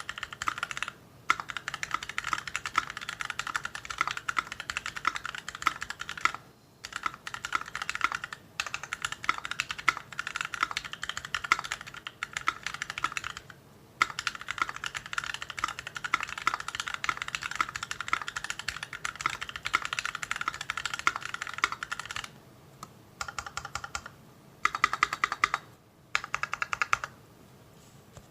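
Typing on a mechanical keyboard with stock, unlubed YOK Mint Panda linear switches on an integrated plate and GMK keycaps: loud, scratchy key strokes in fast runs with brief pauses. Near the end come short bursts of quick repeated strokes.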